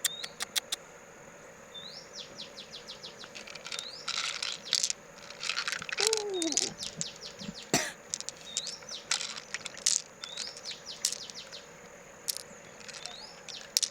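A bird singing the same short phrase every two to three seconds: a rising note followed by a fast run of ticks. Scattered sharp clicks fall in between.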